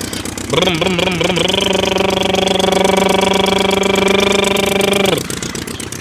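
Steady, buzzy engine-like hum of a looped motorbike sound effect. It starts with a brief wavering in pitch, cuts out shortly before the end, and resumes at a slightly different pitch.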